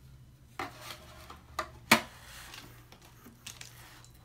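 Hard plastic base of an Orbeez Jewelry Maker kit handled and set down on a table: a short scrape about half a second in, then one sharp plastic clack near two seconds, followed by a few light knocks and rustles of handling.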